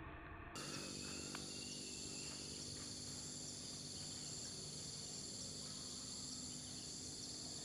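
Faint, steady chorus of insects, several unbroken high-pitched tones held over a background hiss, starting about half a second in.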